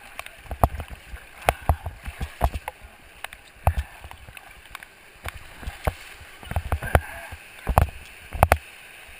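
Whitewater rapids rushing over rocks in a steady hiss, with irregular dull thumps and knocks close to the camera throughout, the loudest a little past two-thirds through and near the end.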